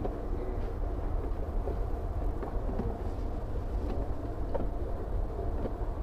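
Steady low rumble of room noise with a few faint clicks and knocks as frosted-plastic storage drawers are pulled out and handled.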